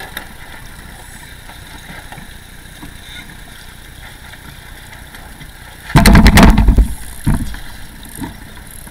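Wind rushing over the microphone of a camera on a sailing dinghy, with water moving against the hull. About six seconds in, a loud buffeting burst lasts about a second, followed by two shorter bumps.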